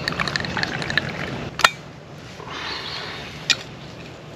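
Hot tea poured from a vacuum flask into a cup, gurgling for about a second and a half, then a sharp click, the loudest sound, with a second click near 3.5 s.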